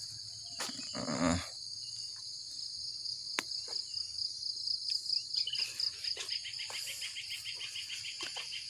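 Insects chirring steadily in a high, pulsing band, joined about five and a half seconds in by a second, faster trill a little lower in pitch. A few light clicks and knocks, and one brief louder noise about a second in.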